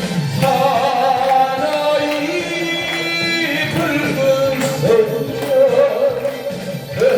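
Korean trot song music: a held, wavering melody over full band accompaniment, in a stretch between sung lyric lines.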